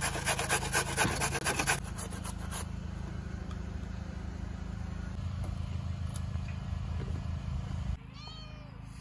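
A carrot is grated on a metal box grater in quick, regular scraping strokes that stop under three seconds in, followed by a steady low hum. About eight seconds in, a cat meows once with an arching pitch.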